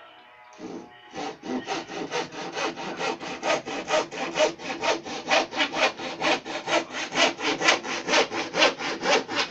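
Hand saw cutting through a wooden board in fast, even back-and-forth strokes, about four a second, starting about a second in after a single knock. The saw is a short, sharp hand saw with case-hardened teeth, cutting a shelf.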